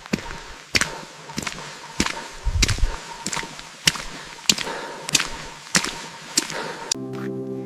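Hiking footsteps on a rocky mountain path: sharp, evenly paced steps, a little under two a second. Background music comes in near the end.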